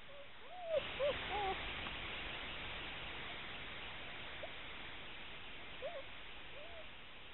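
German Shepherd puppies whimpering: short squeaky whines that rise and fall, several in quick succession in the first two seconds, then a few more spaced out later, over a steady hiss that comes in just under a second in.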